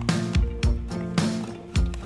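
Background music with a steady, driving beat: repeated kick-drum thumps under held synth-like tones.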